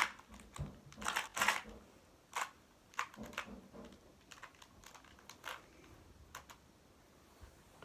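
Plastic Rubik's cube being turned by hand: irregular clicks and clacks of the layers turning, several in the first three seconds, then sparser.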